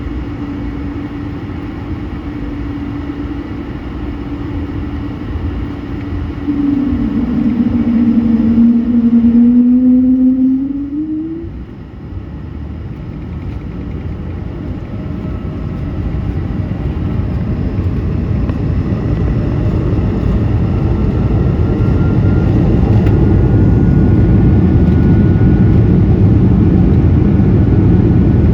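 Airbus A220 engine and cabin noise heard from inside the cabin: a steady whining hum that dips in pitch and then swings up, loudest about eight to eleven seconds in. After a brief lull it gives way to a broad rumble that grows steadily louder.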